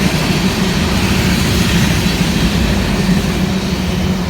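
Freight train rolling past at close range: a steady rumble and rail noise from the wheels and cars, easing off slightly toward the end.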